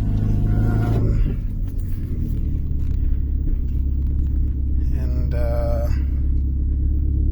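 Car engine idling with a steady low rumble, with a brief voice over it about five seconds in.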